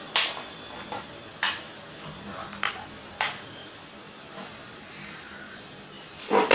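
Cooking oil heating in a frying pan, spitting with a few sharp pops over a faint sizzle, the loudest pop near the end.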